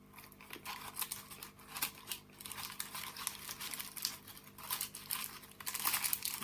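Packaging crinkling as it is handled, in irregular rustling bursts that grow louder near the end.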